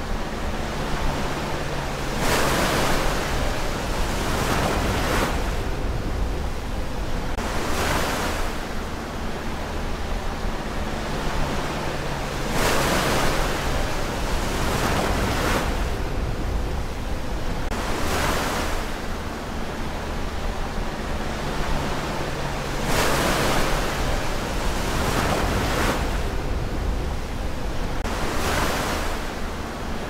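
Ocean surf: waves breaking and washing ashore over a steady rush, swelling to a fresh crash about every three seconds.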